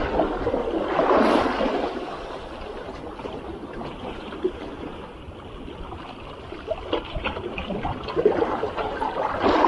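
Small sea waves washing against shoreline rocks, swelling about a second in and again near the end.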